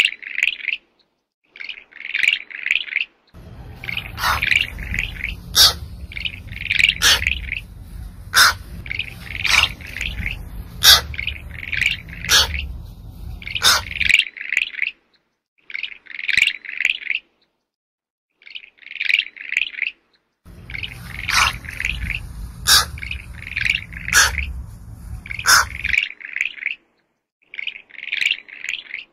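Short clusters of high chirping calls, repeated every second or two, with sharp clicks among them. A low rumble runs underneath for two long stretches.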